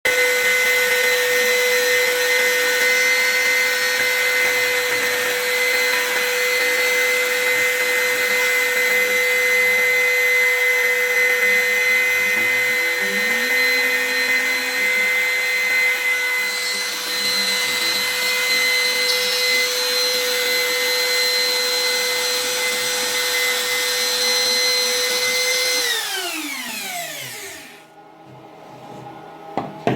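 CNC router spindle running with a steady high whine while milling acrylic. Near the end the whine falls in pitch as the spindle spins down and stops, followed by a few faint clicks.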